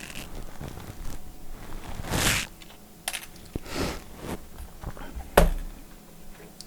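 Scattered clicks and knocks of small hard parts being handled on a workbench, with a brief rustle about two seconds in and a sharper knock near the end.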